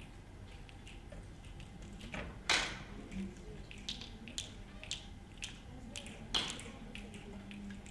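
Scattered finger snaps from a few audience members in a reverberant auditorium, the snapping growing denser as more people join in. Two louder, sharper cracks stand out about two and a half and six and a half seconds in.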